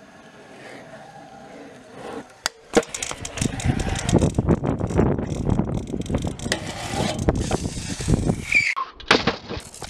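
Scooter wheels rolling over a concrete skatepark surface, a rough, gritty roll dotted with clicks and knocks from pushes and bumps, starting about a quarter of the way in and breaking off shortly before the end. Before it, only a faint steady outdoor hush.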